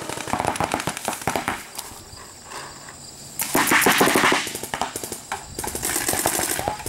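Paintball markers firing rapid streams of shots, several guns at once, easing off about two seconds in and firing heavily again from about three and a half seconds.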